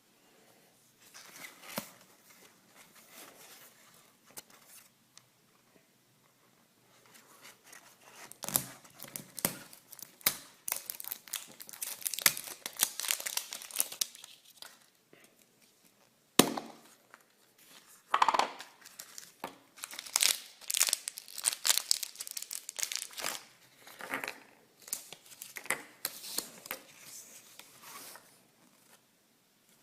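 Packaging being torn open and crinkled by hand in irregular bursts, with a sharp snap about halfway through.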